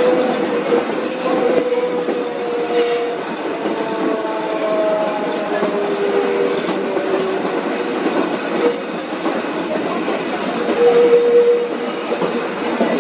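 Tourist train of the La Mure railway running along the track: steady rolling rail noise with drawn-out high tones from the running gear that slide a little and come and go, strongest near the end.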